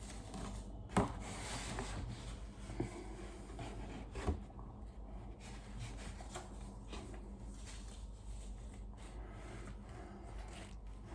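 Faint rubbing and sliding of cardboard boxes and packaging being handled, with a few soft knocks, one about a second in and another about four seconds in.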